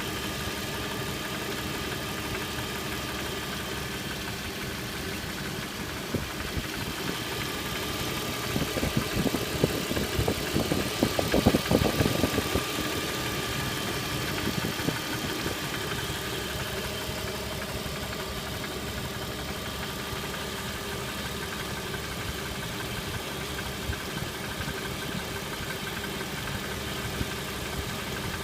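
BMW M50B25 straight-six engine running at idle with a repetitive knock, which the owner links to the VANOS unit. It grows louder for a few seconds in the middle, then settles back to a steady idle.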